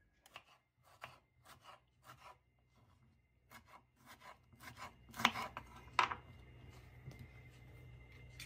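Kitchen knife slicing a tomato on a wooden cutting board: a run of short taps of the blade on the board, roughly two a second. The two loudest come about five and six seconds in.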